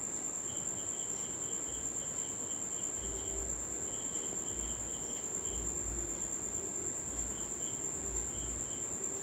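Crickets chirping: a steady high trill under short, repeated trains of chirps. From about three seconds in there are faint low bumps as chicken claws are cut against a boti blade.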